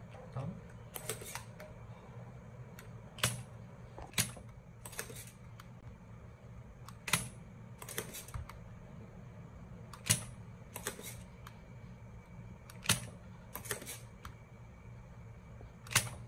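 Spring-loaded desoldering pump firing with a sharp snap about every three seconds, each followed about a second later by a lighter click, over a steady low hum.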